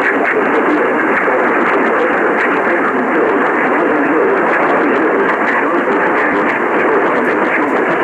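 A SPARC AM/FM radio tuned to 1140 AM putting out a steady hiss of AM static, with a scatter of faint crackles and clicks.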